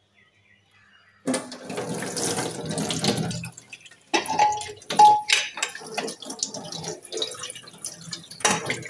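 Tap water running into a stainless steel kitchen sink and splashing on a steel plate being rinsed. The stream starts suddenly about a second in and breaks off briefly a little before halfway.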